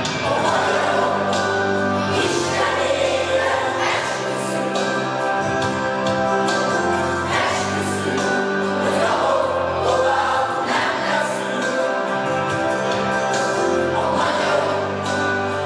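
A children's group singing a song together with instrumental backing.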